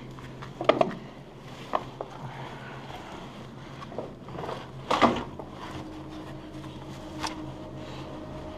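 Scattered knocks and scuffs of a person clambering over rubble through a concrete tunnel, the loudest knock about five seconds in. A steady low drone comes in a little after that.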